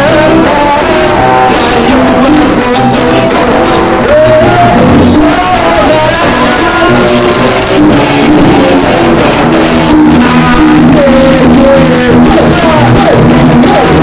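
A band playing a rock song with guitar and singing, loud and continuous.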